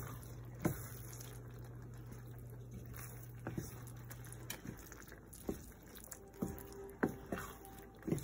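Risotto with heavy cream just added being stirred with a spoon in a pan: soft wet squishing with scattered light knocks of the spoon against the pan. A low steady hum stops about four and a half seconds in.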